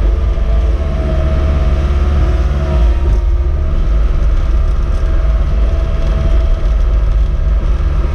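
Cat skid steer's diesel engine running steadily under load, a loud, even low rumble with a few held tones above it.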